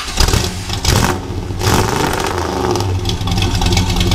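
Car engine revving, as an intro sound effect: a few sharp blips of the throttle in the first two seconds, then running on at steady high revs.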